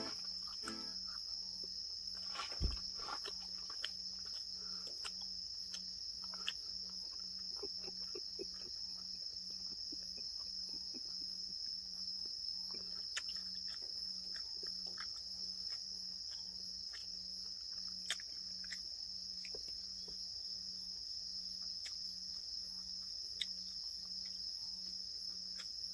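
Crickets or other insects chirring in a steady high chorus. Beneath it runs a low note pulsing a little faster than once a second, with scattered faint clicks and one sharper knock about three seconds in.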